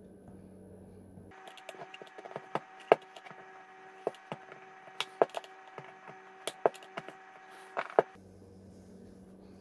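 Plastic twist-cap lid of a Talenti gelato jar cracking and clicking as it is pried with a flathead screwdriver and twisted loose: a run of separate sharp snaps, the loudest about three seconds in.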